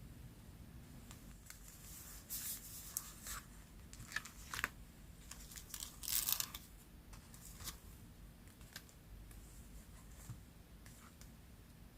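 Paper being handled by hand for a collage: a series of short, irregular rustling and tearing sounds, the loudest about six seconds in.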